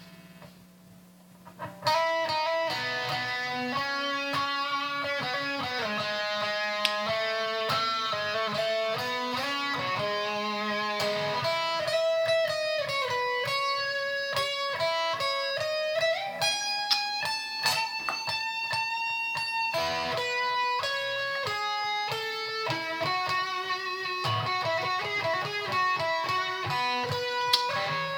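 Electric guitar played solo: after a faint hum for the first two seconds, a continuous run of quick single notes and short phrases with some bends and slides, no drums or voice.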